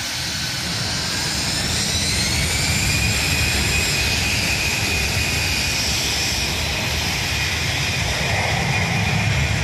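AirAsia Airbus A320-family airliner's jet engines spooling up for departure: a whine rising in pitch over the first few seconds, then holding, over a steady loud rumble.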